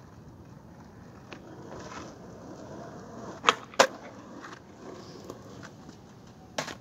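Skateboard deck striking the asphalt: two sharp cracks about a third of a second apart a little past halfway, the pop of the tail and the board coming down in a trick attempt, then one more crack of the board near the end.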